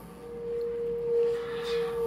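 A steady, whistle-like electronic tone from an improvised experimental sound rig. It fades in, swells and holds, with a brief hiss rising under it near the end.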